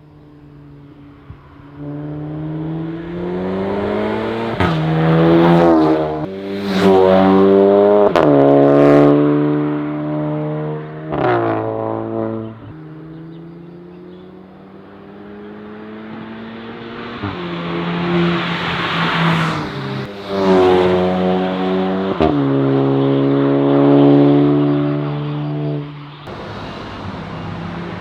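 VW Golf 8 GTI's turbocharged 2.0-litre four-cylinder accelerating hard through the gears on an aftermarket Armytrix valved exhaust. The engine note rises in pitch and drops back at each upshift, over several short fly-by runs that cut abruptly from one to the next.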